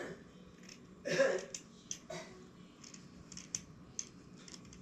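Small scissors trimming thread on cloth: a scatter of light snips and clicks through the second half. A short vocal sound comes about a second in.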